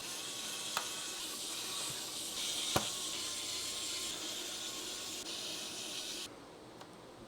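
A steady hiss that swells slightly partway through and cuts off abruptly about six seconds in, with two light clicks, the second the louder.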